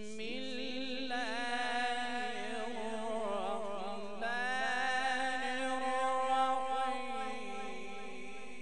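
A man reciting the Quran in long, melodic ornamented phrases: a wavering, trilled line for the first few seconds, then a new, louder phrase about four seconds in that holds steadier before fading out near the end.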